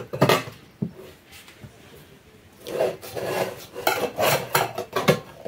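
Rasping scrapes of freshly baked, sesame-coated kömbe cakes rubbing against one another as they are stacked by hand. There is a short cluster of scrapes at the start, then after a lull a run of about half a dozen strokes.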